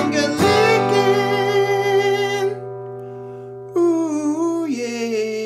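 Closing music: a strummed acoustic guitar chord rings out and is held, and about four seconds in a new held note with a wavering pitch comes in, sung, over a sustained chord.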